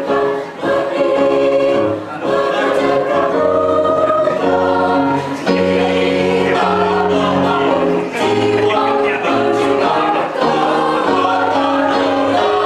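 Mixed choir of adult voices singing together in held chords, with a low bass line underneath.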